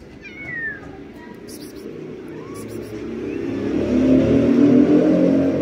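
Car engine running nearby, growing steadily louder over the second half as it approaches, with a short high falling call near the start.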